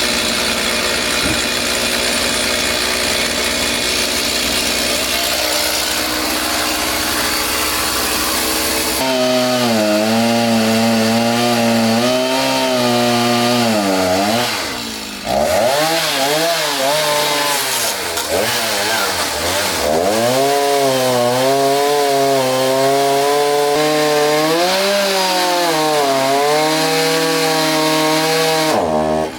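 Stihl chainsaw cutting firewood logs: a steady, noisy cut for the first several seconds, then the engine speed rising and falling again and again as the chain works through the wood. Near the end the sound drops off briefly.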